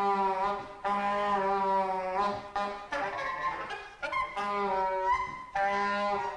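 Music: a wind instrument playing a series of long held notes, each about a second, separated by short breaks. A few of the notes end in a slight upward slide.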